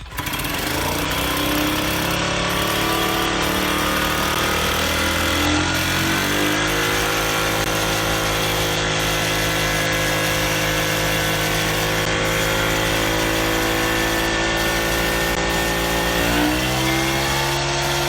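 Restored 1975 AMF/Harley-Davidson golf cart's two-stroke engine starting on the pedal and running. Its speed wavers for the first few seconds, settles to a steady run about six seconds in, and picks up a little near the end.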